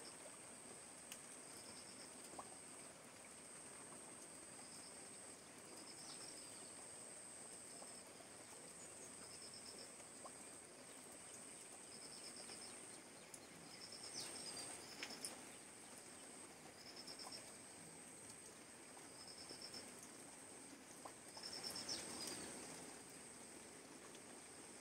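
Faint steady rain falling on standing water and leaves, the hiss swelling briefly twice. Above it insects keep up a steady high-pitched trill, and a short pulsed chirp repeats about every two seconds.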